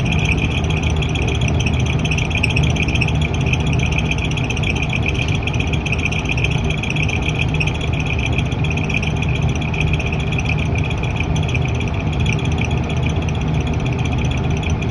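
Exhaust fan running with an abnormal noise: a steady low hum under a high, rapidly fluttering buzz that holds constant throughout, the sign of a fault in the fan.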